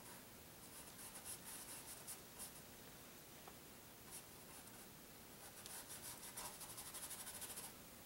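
Faint scratchy strokes of a paintbrush on canvas: a few quick strokes about a second in, then a faster run of short scrubbing strokes in the second half.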